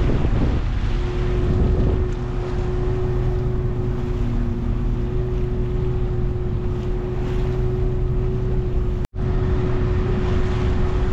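Fishing boat's engine running steadily underway: a constant low drone with one steady hum-like tone, with wind buffeting the microphone. The sound drops out for an instant about nine seconds in.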